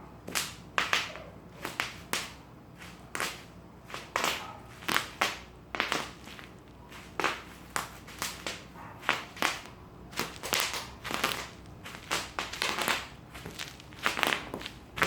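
Bubble wrap being crushed and torn, popping and crackling in irregular sharp snaps, about two or three a second.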